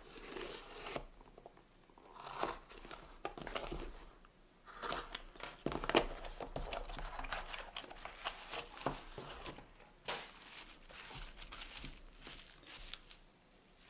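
Packaging of a small mail-order parcel crinkling and tearing as it is opened by hand, in irregular spells of rustling with short pauses.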